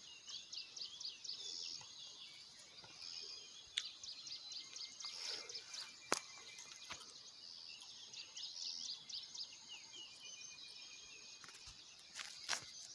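Wild birds chirping: many short, quick high notes, fairly faint, over a steady thin high tone. A few sharp clicks or knocks break in, the loudest about six seconds in and near the end.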